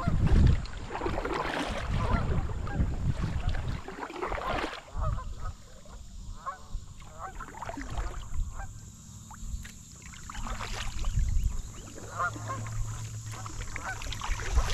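Repeated honking waterfowl calls, thickest in the first few seconds and picking up again near the end, over a steady low rumble and the splash of a kayak paddle in the water.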